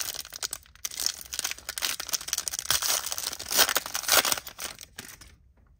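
Foil wrapper of a 2017 Bowman Chrome Mini trading-card pack being torn open and crinkled by hand: a dense, irregular crackling that dies down near the end.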